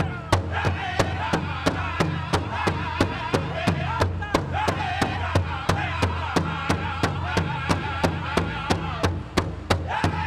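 Pow wow drum and singers: a large drum struck in an even beat, about three beats a second, with a group of singers' voices over it.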